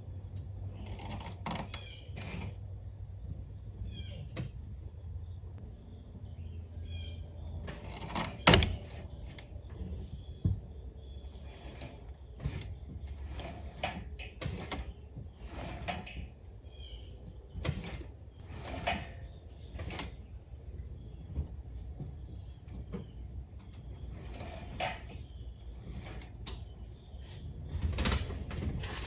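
Scattered clicks and clunks from the air engine's throttle linkage and return spring as the newly fitted accelerator pedal is pressed and released, with one sharp knock about eight seconds in, over a low steady hum.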